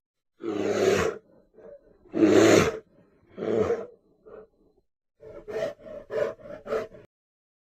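Brown bear growling: three long, rough growls about a second apart, then a quick run of short grunts near the end.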